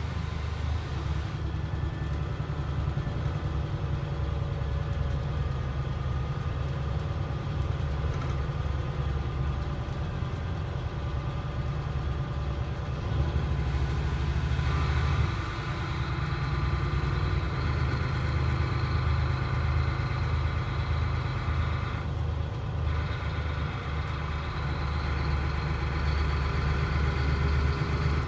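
Cabin sound of a DAF SB4000 city bus with Jonckheere body on the move: its diesel engine runs with a steady low rumble. About halfway through the rumble dips briefly, and then a higher hiss grows over it.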